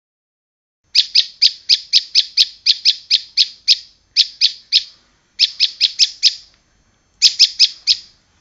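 Prinia (prenjak) calling: sharp, high chirps repeated about four a second. A long run of about a dozen notes is followed by three shorter runs of three to five notes, with short pauses between them.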